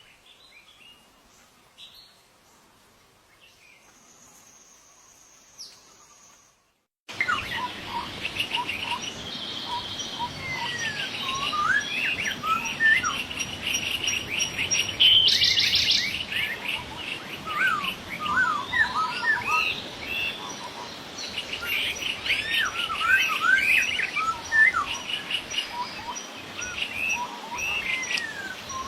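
Chorus of wild birds chirping and calling, with many overlapping rising and falling notes and rapid runs of repeated chirps. It starts abruptly about seven seconds in, after a few seconds of faint, quiet sound.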